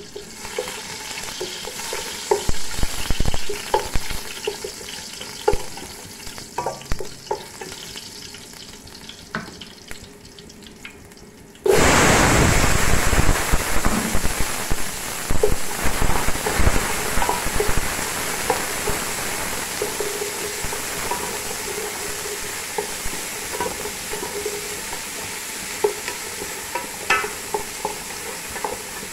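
Garlic cloves and then chopped onions sizzling in hot oil in a metal pot, with the scrape and clack of a wooden spoon stirring them. The sizzle jumps suddenly much louder about twelve seconds in, when the pot is full of onions, then slowly eases.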